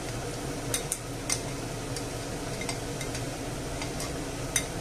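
Spatula scraping dry lentils off a ceramic plate into a pan of tomato broth, with several sharp clicks of the spatula against the plate over a steady hiss.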